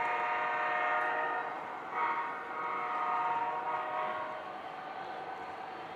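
Horn of an O-gauge Chicago and North Western model diesel locomotive sounding. One blast fades out about a second and a half in, and a second blast of about two seconds follows. After it comes steady background noise.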